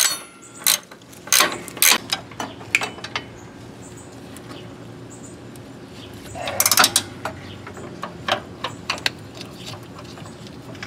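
Hand socket ratchet clicking in irregular runs of sharp clicks, with a few metal knocks, as a control arm bolt is tightened down. The clicks come thickest in the first three seconds and again about six to seven seconds in, with a quieter stretch between.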